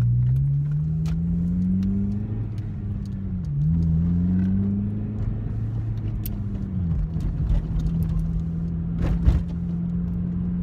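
Car engine heard from inside the cabin, pulling up through the revs, dropping sharply at an upshift of the manual gearbox, climbing again, then settling to a steady cruise. A short knock comes near the end.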